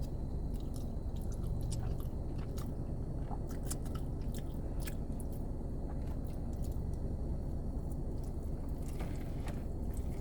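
Close-up chewing of creamy chicken Alfredo pasta: wet mouth clicks and smacks scattered through, over a steady low rumble.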